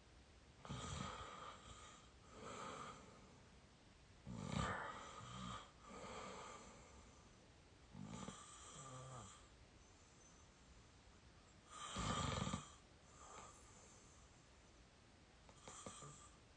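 A young adult snoring in sleep: a louder snore followed by a softer breath, repeating about every four seconds.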